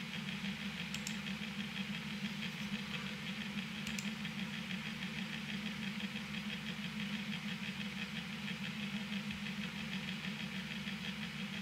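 Steady machine hum with a fast, even flutter, unchanged throughout; two short clicks about one and four seconds in.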